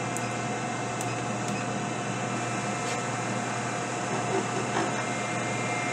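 Milling machine spindle running steadily, turning a half-inch key seat cutter set against a rifle barrel's breech: an even hum with a steady tone, and a few faint ticks.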